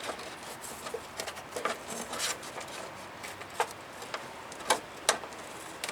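Scattered light clicks and taps at uneven intervals, from a steel brake line and its fittings being handled and worked into place under a pickup, over a faint hiss.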